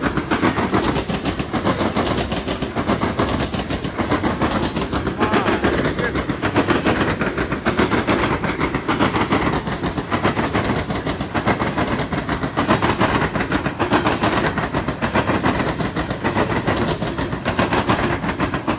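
Loaded Norfolk Southern coal hopper cars rolling past, their wheels hammering over a rail diamond crossing in a loud, rapid, continuous clatter.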